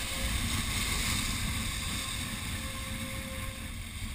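Wind buffeting the microphone over waves breaking and washing against rocks: a steady, rumbling rush of surf and wind.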